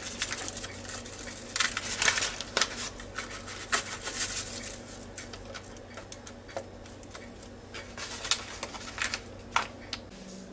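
Paper pouch of dry onion soup mix being shaken and pinched to sprinkle the mix over food in a cooker pot. It makes a run of scattered rustles and small clicks, busiest in the first few seconds and again near the end.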